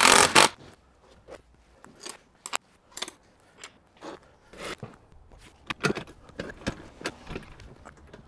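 A cordless drill-driver runs briefly, fastening a mounting bracket onto an awning case. Scattered light clicks and metallic clinks of parts and tools being handled follow.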